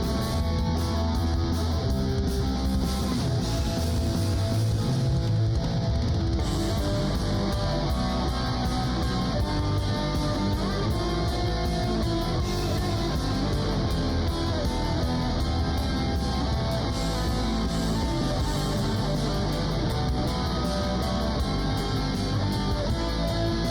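Guitar-led background music playing steadily.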